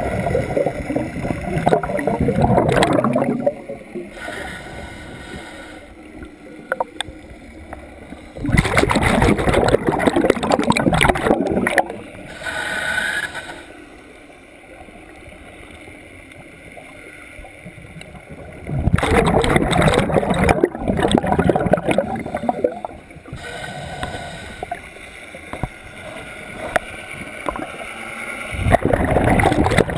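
Scuba diver breathing through a regulator underwater: exhaled bubbles rush out in four bursts of a few seconds each, about every ten seconds, with quieter gaps between them as the diver inhales.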